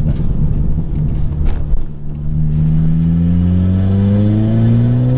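Turbocharged four-cylinder engine of a tuned four-wheel-drive Mk5 Golf GTI under hard acceleration, heard from inside the cabin: a rumble, a brief dip about two seconds in, then the revs climbing steadily.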